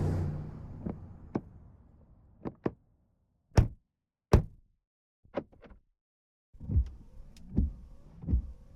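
Chevy Suburban: the engine sound dies away, followed by scattered single clicks and knocks. About two thirds of the way in, a regular low thumping starts, roughly one thump every three quarters of a second.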